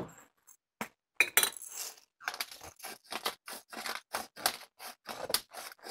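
Pepper grinder twisted by hand over a plate of fish: a run of short, dry grinding clicks at roughly five a second, after a brief rattle a little over a second in.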